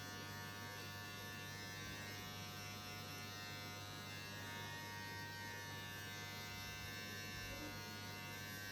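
Electric shaver buzzing steadily as it trims hair.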